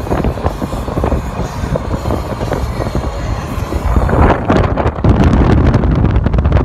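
Wind buffeting the phone's microphone in an open-top convertible while it drives, over the rumble of the car on the road. The buffeting gets louder and choppier about four to five seconds in.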